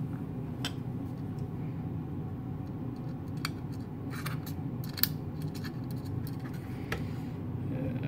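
Small metallic clicks and scrapes of a precision screwdriver and tiny screws against a steel drive caddy as a screw is driven to mount a 2.5-inch SATA SSD, with one sharper click about five seconds in. A steady low hum runs underneath.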